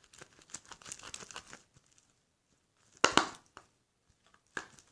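Glue slime being stirred in a bowl as the activator sets it, with a run of small sticky clicks and crackles, then a louder squelch about three seconds in and a shorter one near the end.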